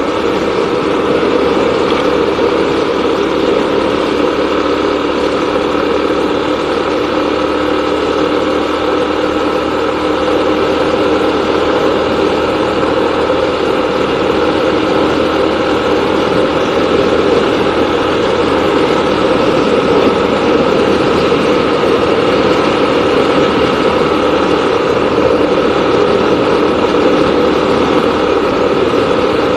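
Vehicle engine running steadily while travelling along a road, with a constant drone and road noise and no change in pace.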